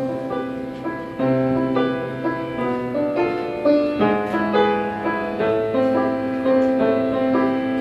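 Solo piano playing a slow instrumental interlude between verses of a ballad, with sustained chords and a new note or chord struck about once a second; no singing.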